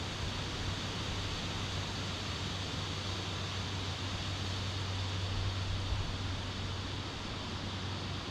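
Wind blowing steadily through trees as an even rushing hiss, over a low steady hum.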